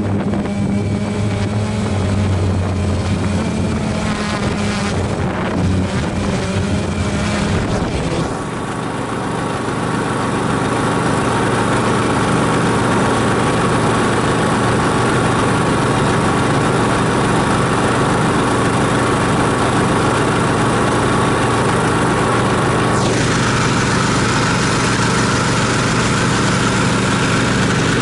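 Toro 48-inch zero-turn riding mower's engine running steadily. The sound changes abruptly about eight seconds in, and a whine drops in pitch a few seconds before the end.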